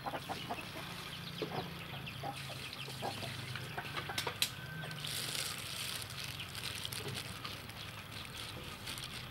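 Chickens clucking in short, scattered calls over a steady background hiss.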